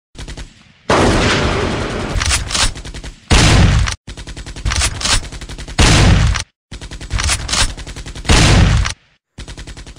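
Bursts of rapid automatic gunfire, several volleys cut together with abrupt stops between them, some with heavy booming shots.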